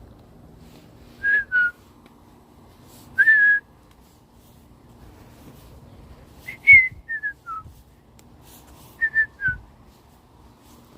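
A person whistling short phrases of clear notes: two notes, then a single held note, then a run of four notes stepping downward and a run of three notes ending lower.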